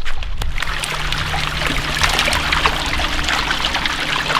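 Shallow seawater trickling and splashing, with a faint steady low hum underneath.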